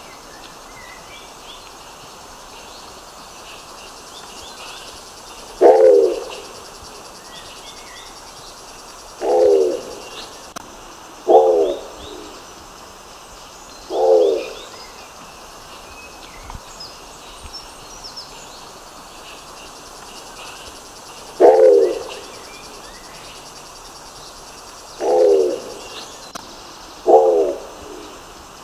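Nicobar pigeon giving short, low calls, seven of them at uneven intervals a few seconds apart, with faint high chirps of other small birds in the background.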